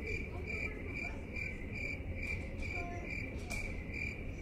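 A cricket chirping steadily, about two short high chirps a second.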